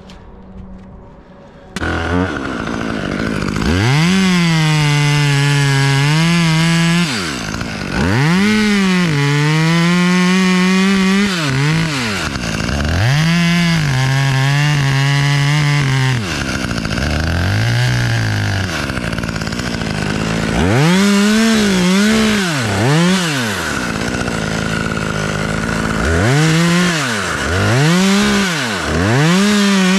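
Gas chainsaw coming in about two seconds in and running up to full throttle in several long stretches, its pitch dipping and holding lower during each, dropping back toward idle between them. Shorter blips of throttle near the end.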